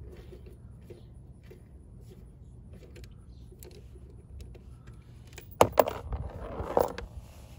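A socket on a T-handle wrench turning a bolt out of a scooter's final drive gear case, with faint light metal clicks. About five and a half seconds in come a few sharp metallic clanks, then a short rustling as the bolt is pulled free and gear oil starts to drain into a plastic pan.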